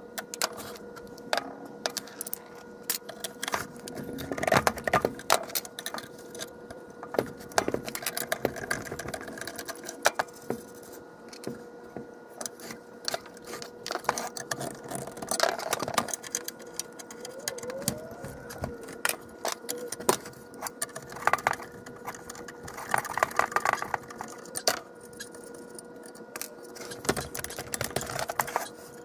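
Tool and metal handling on vintage Autolite electric trumpet horns during disassembly: a screwdriver and the horns' metal brackets and bells give scattered clicks, knocks and metallic clinks. A faint steady hum runs underneath.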